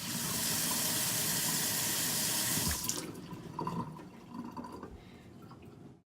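Water running from a tap into a sink, strong for about three seconds, then quieter and more uneven until it stops abruptly near the end.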